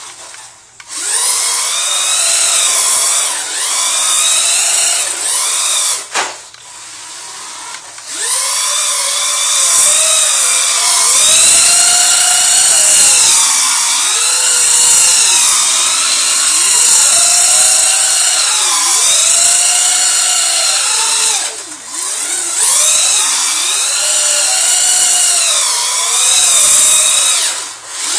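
Electric motor and gears of a Duratrax Evader RC monster truck whining as it spins donuts through standing water on concrete, the pitch swinging up and down over and over with the throttle. The whine drops out briefly about six seconds in, again about eight seconds in, and about 22 seconds in.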